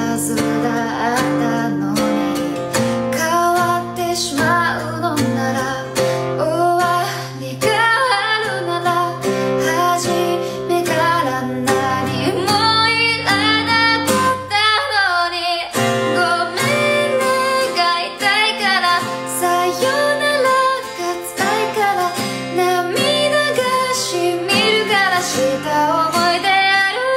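A woman singing a Japanese song, accompanying herself on strummed acoustic guitar. The guitar drops out briefly about halfway through while the voice carries on.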